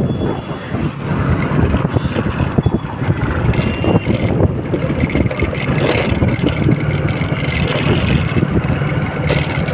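Motorcycle running steadily at riding speed, heard from the rider's seat, with wind rushing over the microphone.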